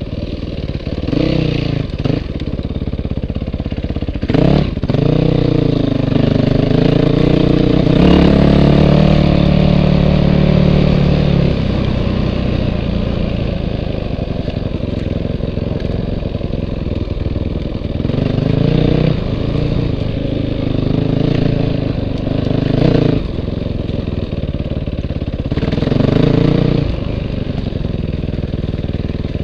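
Dirt bike engine up close, revving in short bursts and easing off between them as the bike is ridden slowly over rough ground, with a longer held rev about eight seconds in.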